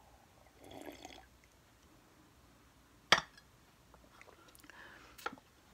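Quiet room tone broken by a sharp click about three seconds in and a smaller click near the end, with faint soft mouth or handling noises in between.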